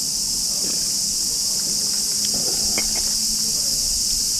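Loud, steady high-pitched shrilling of insects in chorus.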